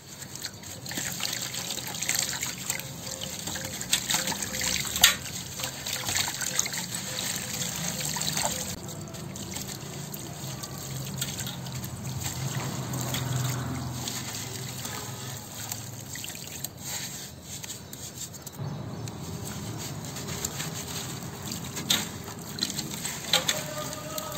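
Dry sandy soil crumbled in the hands and poured into a basin of water: a gritty hiss of falling grains mixed with trickling and dripping, with scattered sharper crunches.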